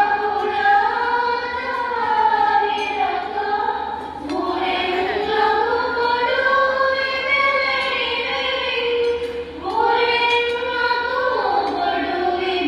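A group of women singing a song together in unison, in long held phrases with short breaks about four and ten seconds in.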